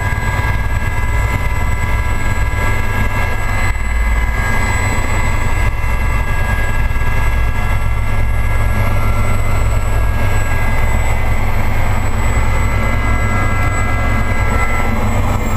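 Aérospatiale Gazelle helicopter's Turbomeca Astazou turbine and rotor running steadily and loud, a deep rumble under a high turbine whine. Near the end the highest whine begins to fall in pitch.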